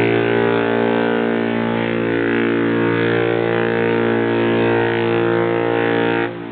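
Queen Mary 2's ship horn, a compressed-air Tyfon whistle tuned to a low A, sounding one long, steady blast that cuts off abruptly near the end.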